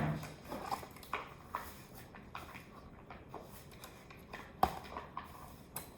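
Scattered small clicks and taps of toy packaging being handled during an unboxing, at irregular intervals, with one sharper knock about two-thirds of the way through.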